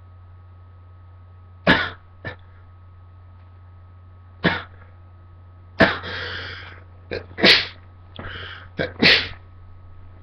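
A person sneezing over and over in a fit: about five sharp, loud sneezes with smaller ones between, coming faster toward the end.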